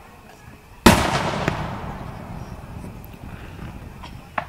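Aerial firework shell bursting: one sharp, loud boom about a second in that echoes and fades over the next couple of seconds. A small pop near the end, then another loud boom right at the end.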